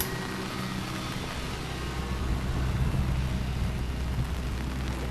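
An engine running at a steady idle, its low hum setting in about a second and a half in, over a constant hiss of rain.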